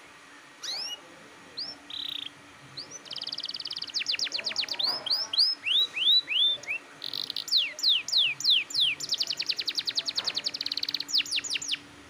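Domestic canary singing: a few separate rising and falling notes at first, then a long, loud song of sweeping falling notes and fast rolling trills that cuts off sharply near the end.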